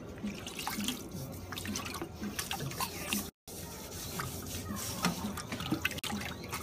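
Shallow water sloshing and splashing in the bottom of a stainless-steel brewing kettle as a hand wipes and rinses it, with scattered small drips and splashes. The sound cuts out completely for a moment a little over three seconds in.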